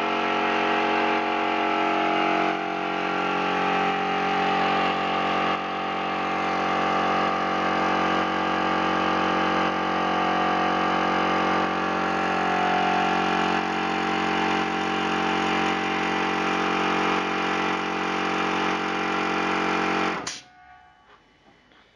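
Oil-lubricated piston air compressor running steadily, with a small charge of fresh oil (about 50 g) in its crankcase to flush out the old oil. It cuts off abruptly near the end.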